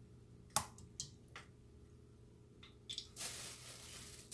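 Wet squelches of battered chicken wings being lifted out of a bowl of batter: a few short squishes in the first second and a half. From about three seconds in, a plastic grocery bag rustles as the wings are moved to the bag of flour.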